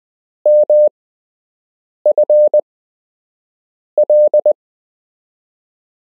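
Morse code practice audio: a single steady beep keyed into dots and dashes, sending three characters of a random call sign, each character sent quickly with a pause of over a second before the next.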